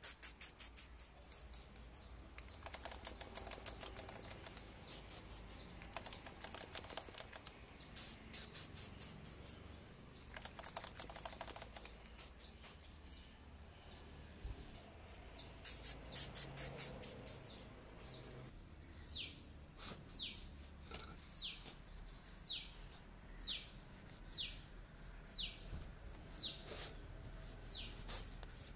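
A bird calling: a regular series of short, high whistled notes, each falling in pitch, about one a second through the second half. Before that come several bursts of rapid high ticking, each a second or two long.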